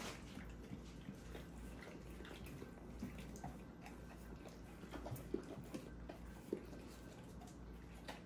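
Dogs eating and licking food from plastic plates: faint wet licking and chewing, with small clicks of tongue and teeth on the plate and a few sharper ticks in the second half.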